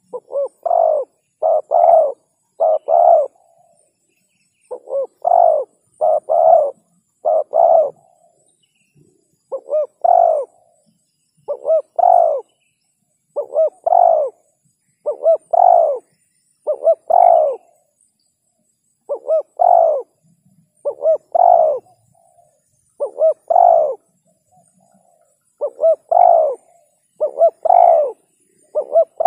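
Spotted dove (tekukur) singing its cooing song: short phrases of two or three low, rounded coos, the last note usually the loudest, repeated every one to two seconds with a few brief pauses.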